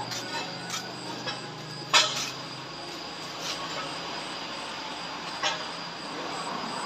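A vehicle engine running low and steady, fading after about two seconds, with several sharp metallic knocks; the loudest comes about two seconds in and another near the end. A faint steady high whine runs underneath.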